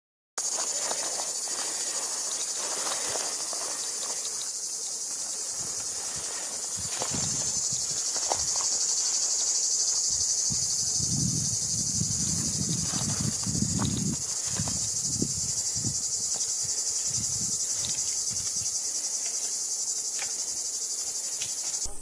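Steady, high-pitched chorus of insects chirring, from cicadas or crickets, with a few low rustles and thuds around the middle.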